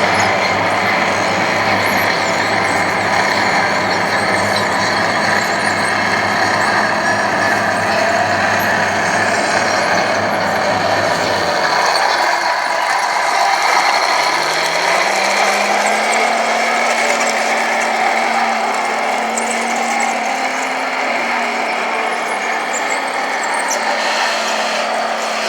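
Motors and gearboxes of radio-controlled model construction machines running with a steady mechanical whir. A low hum stops about eleven seconds in, and a few seconds later a new whine rises in pitch and then holds steady.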